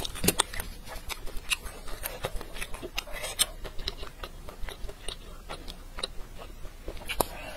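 Close-miked chewing: a person eating, with many irregular short wet clicks and crunches, several a second.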